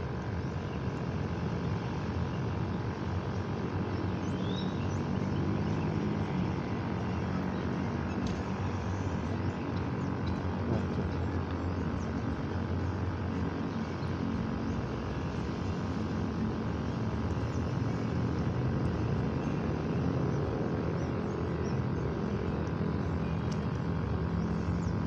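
A steady engine drone with a low hum, swelling a little in loudness in the middle.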